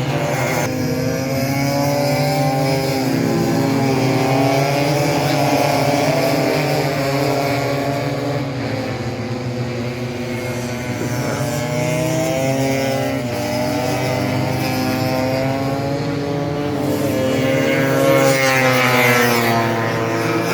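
Several tuned 180cc two-stroke Vespa scooter engines racing, their pitches wavering up and down as riders rev and shift, swelling louder near the end as machines pass close.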